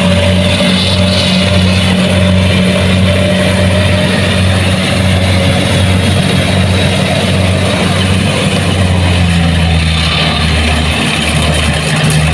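Kubota DC-70 Plus combine harvester's diesel engine running steadily: a loud, even low drone whose pitch sags slightly for a moment about three-quarters of the way through.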